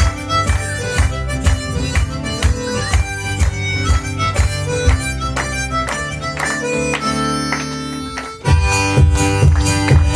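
One-man band playing a tune led by harmonica over a steady beat of percussive strikes. The beat drops out for a couple of seconds near the end while a chord is held, then comes back louder.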